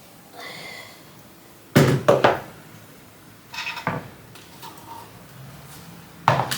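A few knocks and clunks of household objects being handled: a pair of sharp knocks about two seconds in, softer clunks near four seconds, and another knock near the end.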